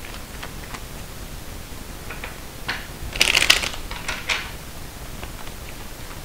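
Tarot cards being handled and shuffled: scattered single card clicks, then a short rapid flurry of card flicks about three seconds in, then a few more clicks.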